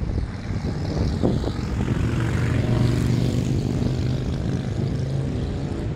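Road traffic passing close by on a city street: a steady engine drone over road noise, swelling to its loudest about halfway through and easing off near the end.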